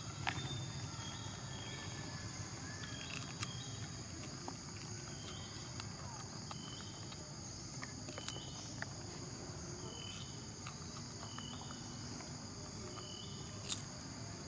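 Steady insect chorus buzzing at a high pitch, with short high chirps repeating about once a second and a few faint clicks.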